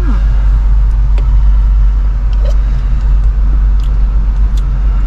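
Steady low rumble of a truck's engine idling, heard inside the cab, with a few faint clicks.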